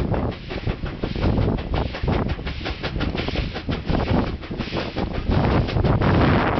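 SY-class 2-8-2 Mikado steam locomotive working hard at the head of a freight train, its exhaust chuffing in quick, uneven beats, with wind on the microphone. It grows louder in the last second or so as the engine draws near.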